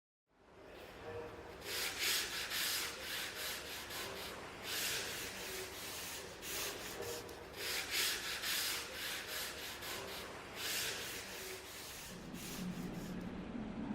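Sandpaper rubbing on wood in long hand strokes, one roughly every three seconds over a steady scraping rustle. A low hum comes in near the end.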